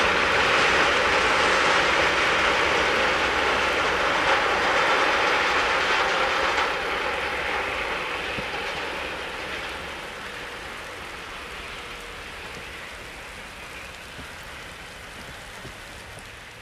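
Rolling noise of a freight train's tank wagons on the rails as the train pulls away. It fades steadily from about six seconds in, leaving a fainter hiss, with rain falling.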